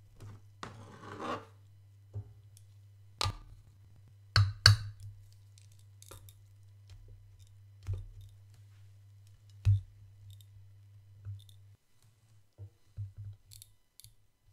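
Kitchen tongs clicking and tapping as small pancakes are picked up and set down on a ceramic plate. A short scrape comes near the start, then a series of sharp separate taps, the loudest about four and a half seconds in, and a few lighter ticks near the end. A faint low hum sits under the taps and stops about twelve seconds in.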